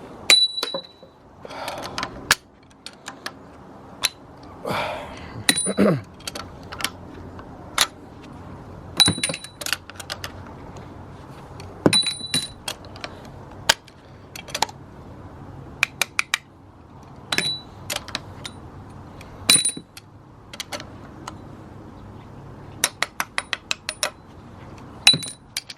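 Small steel engine parts clinking against each other and against metal as they are picked off a cylinder head and set down. The clinks are sharp, with a short metallic ring, and come one at a time, then as a quick run of clicks near the end.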